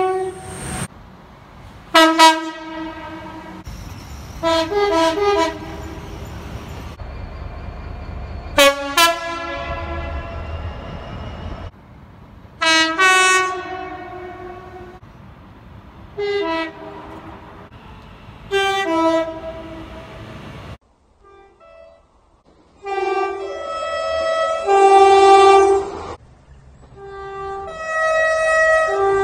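Train horns from a series of passenger trains, about eight soundings in all: short and longer blasts, many stepping between a high and a low note. Under the first half runs the low rumble of a train passing.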